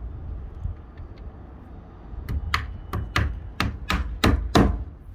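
Hammer driving a nail through timber corner capping into a wooden shed's cladding: eight quick blows, about three a second, starting about two seconds in and getting louder toward the end.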